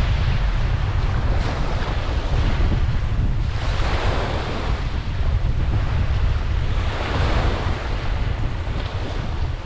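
Ocean waves breaking and washing up a beach, swelling twice, over a steady low rumble of wind on the microphone.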